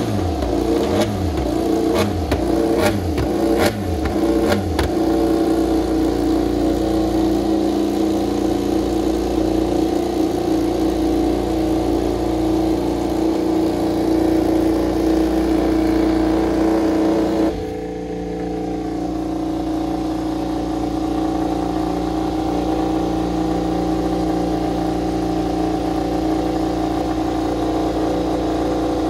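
KTM RC16 MotoGP bike's V4 race engine warming up on its stand: the throttle is blipped about once a second for the first few seconds with sharp exhaust cracks, then held at a steady fast idle that drops to a lower steady idle about 17 seconds in.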